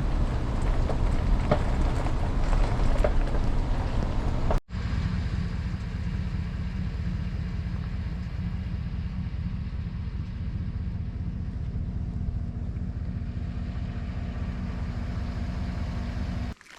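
Motorboat engine running at steady speed. The first few seconds are rough and noisy, with wind and water rush over the engine; after a sudden cut about four and a half seconds in, a steady low engine hum continues until it cuts off near the end.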